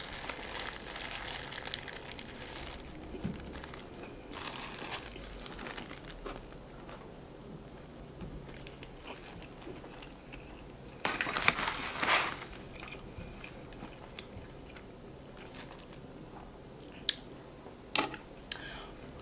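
Close-up eating sounds of a Popeyes spicy fried chicken sandwich being bitten and chewed, with the crispy breading crunching. The crunching comes in bursts, with the loudest crackly burst about eleven seconds in and a few sharp clicks near the end.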